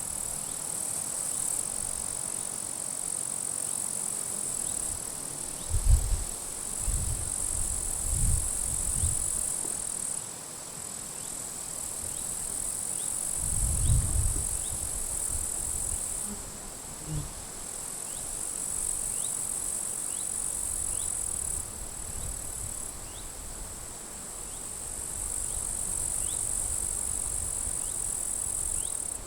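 Grasshoppers stridulating in the grass: a high-pitched hiss in bouts of several seconds that stop and restart. Gusts of wind buffet the microphone with low rumbles about six seconds in, again around seven to nine seconds, and near the middle; the first gust is the loudest moment.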